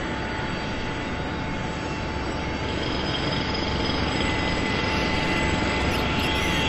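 A steady engine-like roar with held high whining tones, slowly growing louder; faint high sweeping whines come in near the end.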